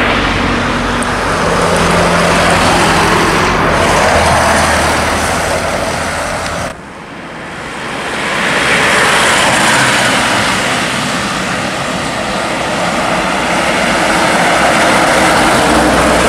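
Light diesel trucks driving past close by on a highway: engine and tyre noise swells and fades as each truck goes by. The sound drops off abruptly about seven seconds in, then builds again as the next truck approaches and passes.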